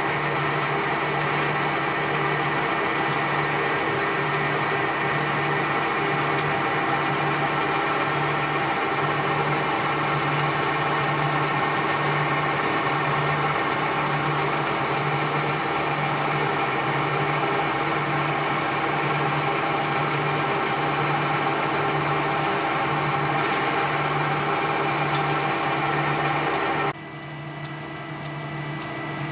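Machine-shop machinery running steadily, a dense whine with several fixed tones over a low hum that pulses in an even rhythm. Near the end the sound drops off suddenly, leaving a quieter hum with a few clicks.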